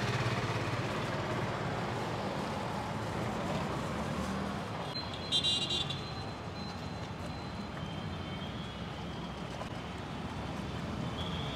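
Steady street traffic noise with a car horn tooting briefly about halfway through.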